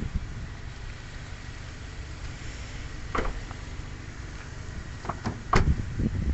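A low steady rumble with a few sharp clicks and knocks: one about three seconds in and a cluster near the end, the loudest just before the end, as a hand goes to the rear door of a car.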